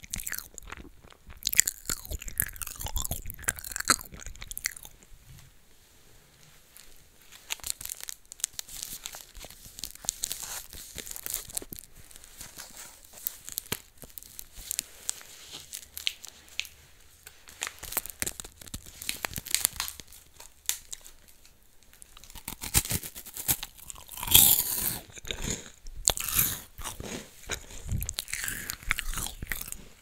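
Close-miked crunchy biting and chewing of crisp baked snacks, with runs of louder crunches about a second in and again near the end.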